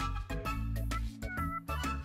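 Instrumental background music with sustained bass notes, short melodic notes and a regular beat.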